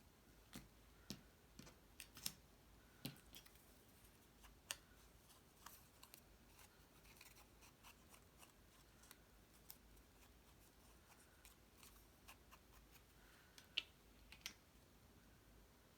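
Faint, scattered light clicks and taps of small paper pieces being handled and flipped over on a craft table, mostly in the first few seconds and twice near the end.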